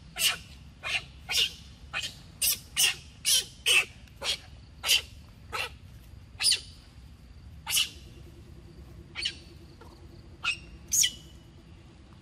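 A forest bird calling in short, sharp chirps, about two a second at first, then more sparsely.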